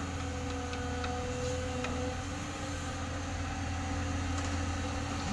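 Diesel excavator engine running at a steady speed, an even low hum with a constant higher whine over it and a few faint ticks.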